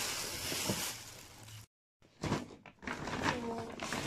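Tissue paper rustling as it is pulled back from shoes in a cardboard shoebox; the sound cuts off suddenly about one and a half seconds in. After a short gap come crinkles and light knocks of a paper shopping bag being handled.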